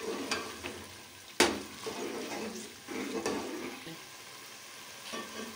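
A metal spoon stirring a thick chicken curry masala that is sizzling as it fries in a metal pot. The spoon scrapes and knocks against the pot several times, with one sharp clink about a second and a half in.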